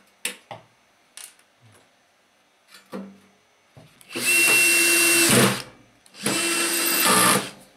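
Cordless drill-driver running twice, each run about a second and a half, driving two screws back into a microwave oven's sheet-metal cover. A few light clicks of the cover being handled come first.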